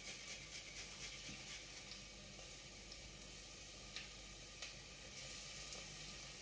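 Faint sizzling of freshly grated garlic in hot oil in a pot, with a few soft scraping strokes of a hand grater in the first second or so and two light clicks about four and four and a half seconds in.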